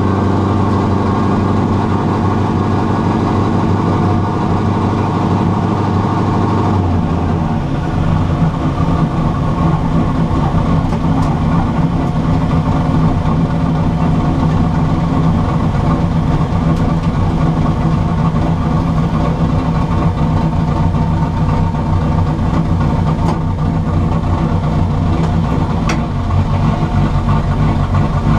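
Carburetted, rear-mount-turbocharged car engine running steadily, its note shifting to a different pitch about seven seconds in.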